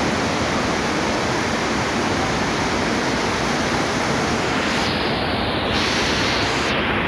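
Fast-flowing muddy floodwater rushing in a steady, even torrent.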